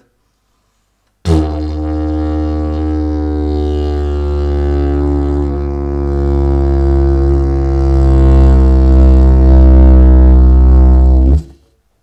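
Slide didgeridoo played with circular-free lip buzzing in one long, deep, steady drone rich in overtones, starting about a second in and stopping shortly before the end.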